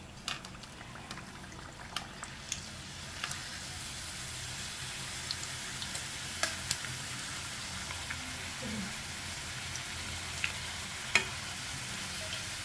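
Maida dough pieces deep-frying in hot oil in a kadai: a steady sizzle that grows louder over the first few seconds as more pieces go in, with a few sharp clicks.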